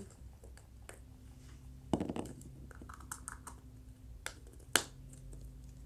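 Small plastic Shopkins toys being handled, giving scattered light clicks and taps, with a sharper knock about two seconds in and another near five seconds.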